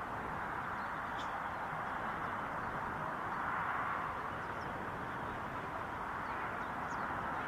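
Steady outdoor background noise, with a few faint, short, high chirps about a second in, midway and near the end.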